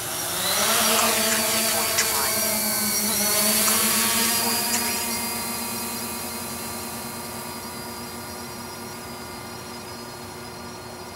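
3DR IRIS+ quadcopter's four electric motors and propellers spinning up for an automatic takeoff, rising in pitch, then a steady multi-tone buzz as it climbs and flies away, fading slowly over the last several seconds.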